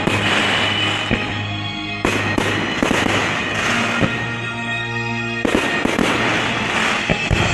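Fireworks firing and bursting, comets and aerial shells with sharp reports about two seconds in and again around five and a half seconds, over music with long held notes.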